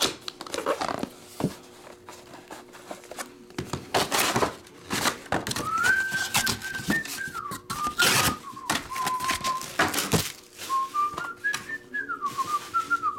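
A person whistling a tune, one clear note line stepping up and down, starting about halfway through. Before and under it come several loud rustles and knocks of a trading-card box and its packaging being handled and opened.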